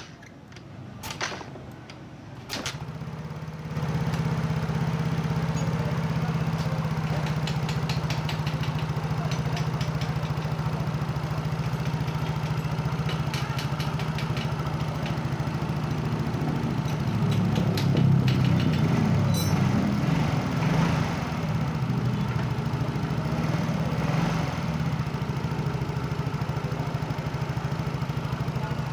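A Yamaha Mio J scooter's fuel-injected engine starts a few seconds in after some clicks, then idles. The idle swells louder around the middle and settles again: the unsteady, rising-and-falling idle of an idle speed control that has not been reset.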